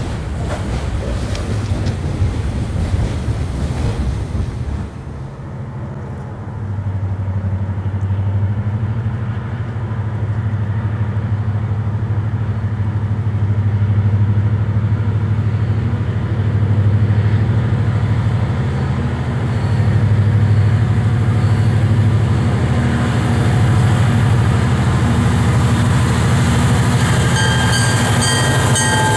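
An EMD GP40-2W diesel locomotive's 16-cylinder two-stroke engine runs as it leads a freight train toward the listener: a steady low drone that builds over several seconds and then holds, with wheel clicks as it reaches the listener near the end. Before that, a few seconds of freight cars rumbling past are heard with wind on the microphone.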